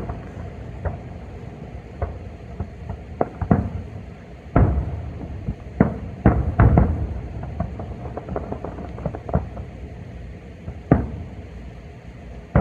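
Aerial fireworks shells bursting: about a dozen irregular booms, each trailing off in an echo, the loudest about four and a half seconds in and a quick cluster of bangs around six to seven seconds.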